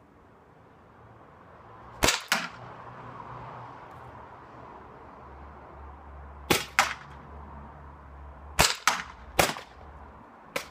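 Gas-powered paintball markers firing about eight sharp shots, mostly in quick pairs, spread over several seconds.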